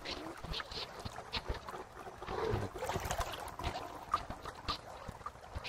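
Water sloshing and lapping as someone wades through waist-deep pool water, with soft splashes that echo around a large tiled room.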